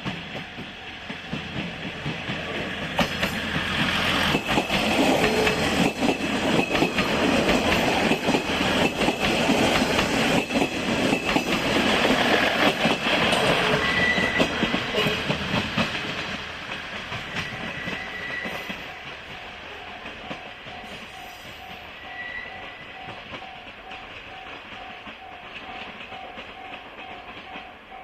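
A train passes over a level crossing, wheels clacking over the rail joints, loudest from about four to fourteen seconds in before fading away. A level-crossing alarm bell rings with an even, repeating beat, heard plainly once the train has gone.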